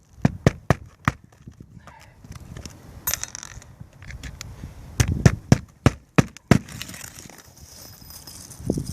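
Hand tool knocking on an asphalt shingle roof, typical of hammering in roofing nails. There are a few quick sharp knocks near the start and a louder run of them about five seconds in, with scuffing of shingles in between.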